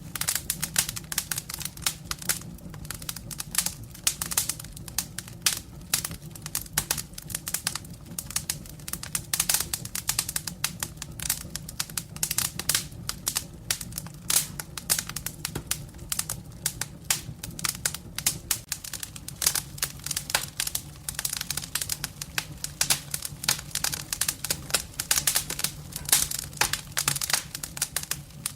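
Firewood burning in a fireplace, crackling with dense, irregular pops and snaps over a low, steady hum.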